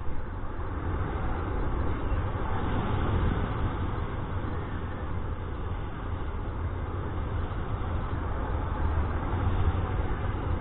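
Wind rushing over the camera microphone of a paraglider in flight: a steady low rumble with a hiss above it, swelling a little now and then.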